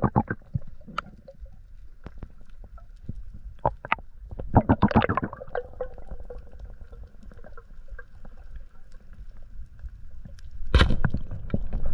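Underwater sound along a coral reef: scattered sharp clicks and crackles over a low rumble, with a bubbly gurgle about five seconds in and a louder rush of bubbling near the end.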